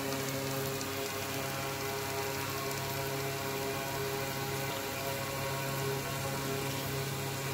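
Electric pedestal fan running close by, blowing air onto a charcoal grill to fan the coals: a steady motor hum over an even noise of moving air.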